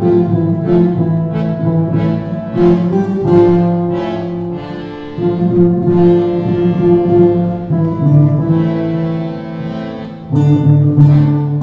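Live ensemble music from a group of acoustic guitars playing chords together, with long held notes over them. The music dips briefly about five seconds in and gets louder near the end.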